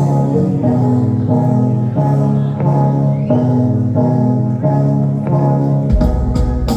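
Live rock band playing an instrumental stretch with no vocals: a pitched figure repeats in roughly one-second phrases, and deep bass and drum hits come in about six seconds in.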